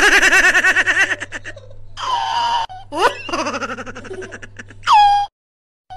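A woman and a small child laughing and giggling in quick, high-pitched bursts. The sound cuts out completely for about half a second shortly before the end.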